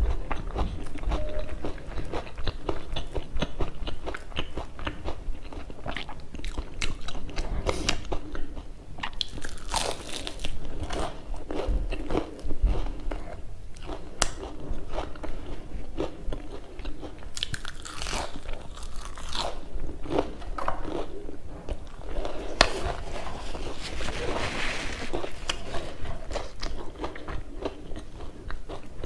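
Close-miked crunching and chewing of crispy fried chive fritters (nakuppi bora), with many small crackling bites in a steady, irregular stream.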